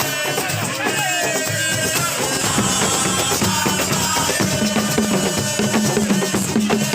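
Drum-heavy music with a dense, steady percussion rhythm. A held low note comes in about two and a half seconds in.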